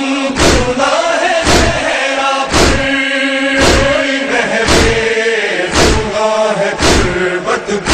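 A group of men chanting a Shia noha in unison, with rhythmic chest-beating (matam), one hand strike on the chest about once a second.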